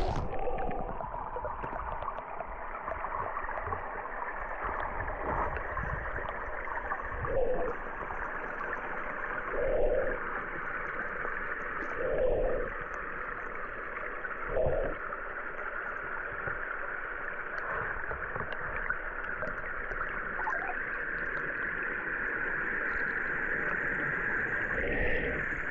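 Creek water heard through a camera submerged in the stream: a steady, muffled wash and gurgle of current, with four dull thumps about two and a half seconds apart in the middle.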